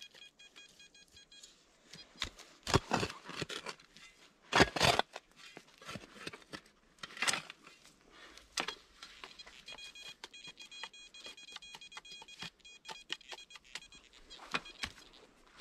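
Shovel cutting and scraping into soil in a series of sharp strikes, with a metal detector beeping in quick pulses near the start and again for a few seconds about two-thirds of the way through.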